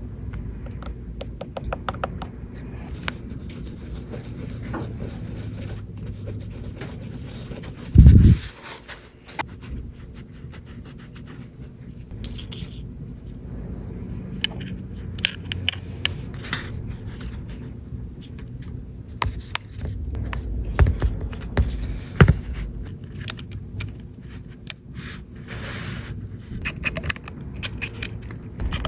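Small repair tools clicking, scraping and tapping on a phone's parts, in scattered irregular ticks over a low steady hum, with one loud low thump about eight seconds in.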